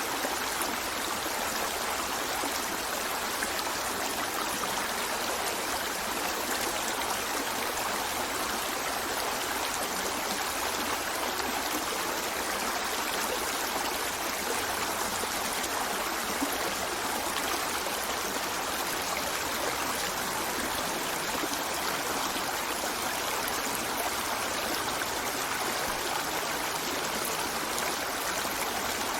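A river flowing steadily: an even rush of running water with no breaks.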